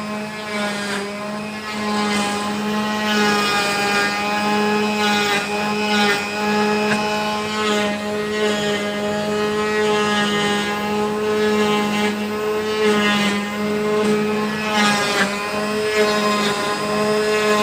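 CNC wood router running, its spindle giving a steady whine of several tones, with rougher cutting noise rising and falling as the bit works the wood.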